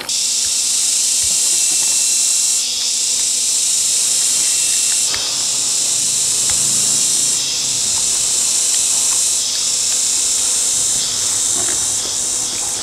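Loud, steady, high-pitched insect buzzing, like a summer insect chorus, that steps up and down in level every two to three seconds.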